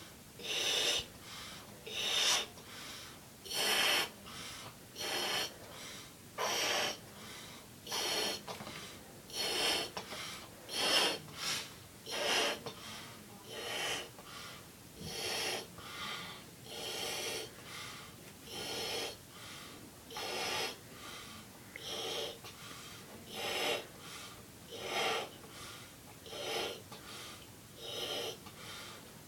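A person blowing up a punchball balloon by mouth: a hard breath in, then a blow into the balloon, repeating about every second and a half.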